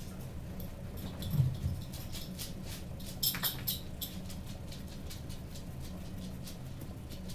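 Fidget spinner still spinning slowly: light irregular ticking and scratching over a steady low hum, with a soft thump about a second and a half in and a brief clatter of clicks around three seconds in.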